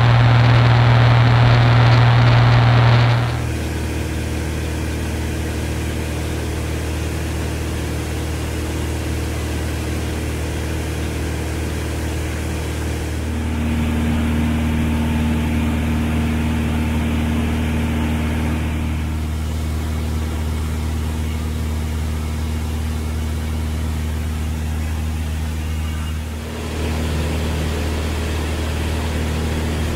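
Light aircraft's piston engine and propeller droning steadily, heard from inside the cockpit of a Van's RV homebuilt. The drone changes abruptly in pitch and level about three, thirteen and twenty-six seconds in.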